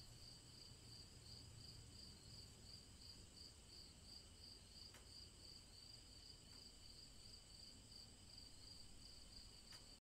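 Crickets chirping faintly in a steady, pulsing trill, about three pulses a second.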